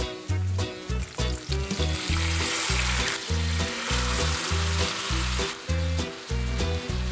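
Garlic and chili flakes frying in olive oil in a stainless steel pan, with a burst of loud sizzling from about two seconds in that lasts some three seconds as the cooked spaghetti goes into the hot oil. Background music with a steady bass beat plays underneath.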